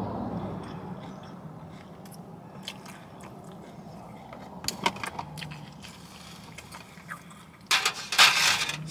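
Close-up chewing and biting of a Chipotle bowl, with light clicks of a fork against the bowl, over a steady low hum. Near the end comes a louder burst of rustling.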